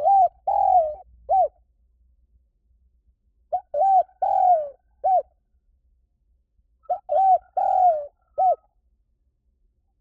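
Spotted dove cooing: three phrases about three and a half seconds apart, each of four notes. Each phrase runs a short note, a coo, a longer coo that falls at its end, and a clipped final note.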